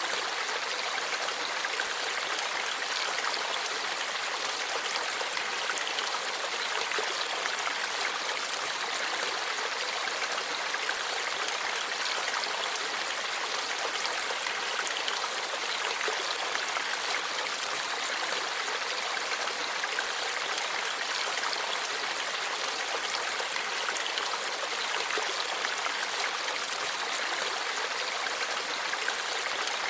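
Forest stream flowing and babbling over rocks, a steady rush of water.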